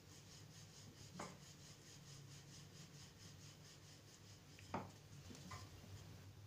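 Wooden rolling pin rolling paratha dough on a stone rolling board: faint, regular rubbing, with two light knocks, one about a second in and one near five seconds.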